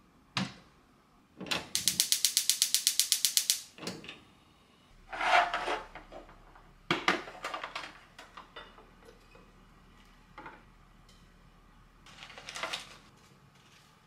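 Gas stove igniter clicking rapidly, about nine even clicks a second for two seconds. This is followed by scattered kitchen clinks and knocks as a tea tin and its bag are handled.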